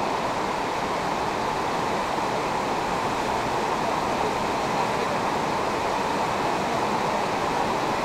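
Fast-flowing floodwater rushing steadily.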